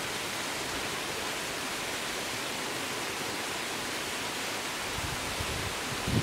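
Waterfall: a steady, even rush of falling water, with a few low gusts of wind on the microphone near the end.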